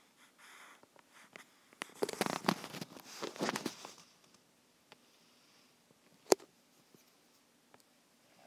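Stylus tapping and sliding on a tablet's glass screen. About two seconds in comes a louder burst of rustling and knocking lasting some two seconds, and later a single sharp tap.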